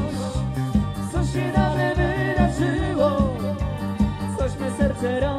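A live dance band playing a Polish pop song, with a singer holding the melody over a steady beat.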